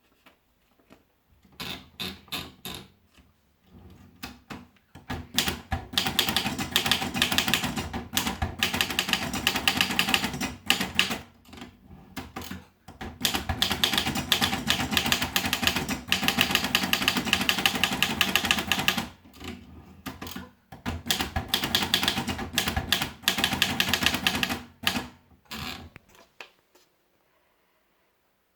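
Erika Model 12 portable manual typewriter being typed on: rapid key strikes in runs lasting several seconds with short pauses between them, stopping near the end.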